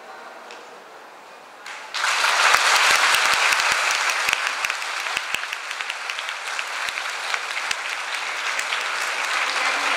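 Audience applauding, breaking out suddenly about two seconds in and carrying on steadily to the end.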